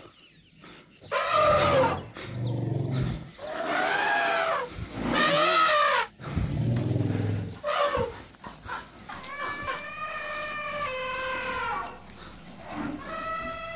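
Elephants trumpeting: about six loud, drawn-out calls in a row, the last two longer and steadier in pitch before falling away.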